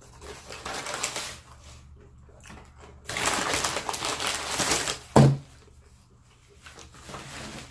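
Close-up crunching and chewing of crispy fried chicken, with a dense crackle from about three to five seconds in. A single short, loud, low sound comes at about five seconds.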